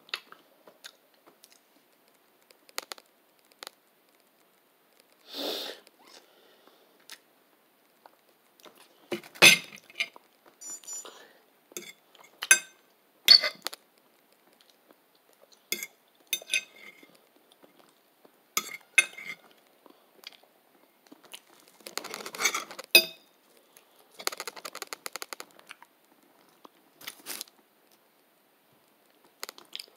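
A person eating close to the microphone: chewing and mouth sounds with scattered clicks and knocks from handling food and dishes, and a couple of longer rustling stretches about two-thirds of the way through.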